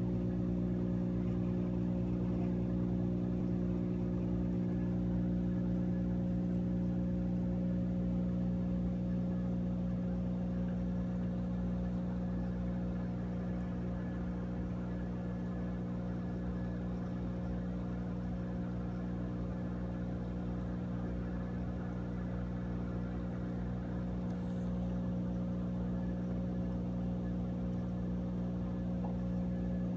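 Aquarium equipment humming steadily: a low electric hum made of several even tones.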